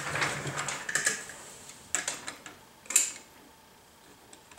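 A few light metal clicks and taps, roughly a second apart, from tongue-and-groove (channel-lock) pliers being handled and set against the clutch centre nut and its lock washer.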